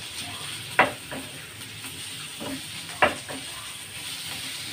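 Pork pieces frying in a little oil with sautéed garlic, onion and ginger, sizzling steadily while a spatula stirs them and scrapes the pan. The spatula knocks sharply against the pan about a second in and again about three seconds in.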